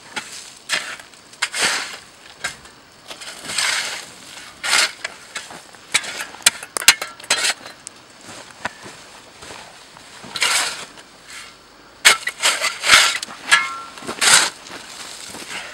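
Shovel scraping and chopping into dry soil and earth clods, breaking down a huatia earth oven over hot rocks and potatoes. Irregular scrapes and crunches, with a quick run of sharper knocks near the end.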